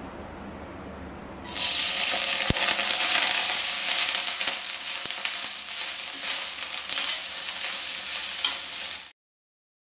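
Cooked basmati rice dropped into hot ghee and cumin seeds in a stainless steel kadai. It sizzles loudly from about a second and a half in while a spatula stirs it, with faint scrapes against the pan. The sound cuts off suddenly near the end.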